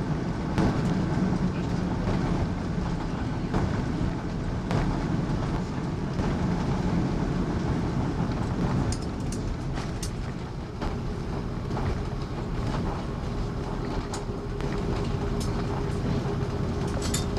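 Airliner cabin noise during the landing rollout: a steady low rumble from the wheels rolling on the runway and the engines, with occasional knocks and rattles. A steady hum joins about two-thirds of the way through.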